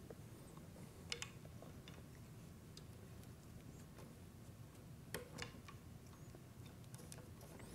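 Near silence: room tone with a few faint clicks and taps from handling the shaft tip on the deflection board, about a second in and again around five seconds in.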